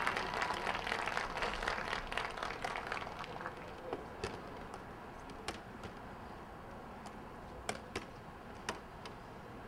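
Crowd applause and cheering dying away after the band's music cuts off, followed by a quiet stretch with five or six short, sharp clicks spread over the last few seconds.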